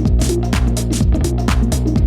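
Electronic background music with a steady, driving beat.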